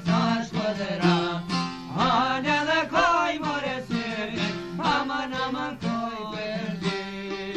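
Albanian folk music played by a small ensemble: plucked long-necked lutes and a violin, with a melody that slides up and down over a steady held low note.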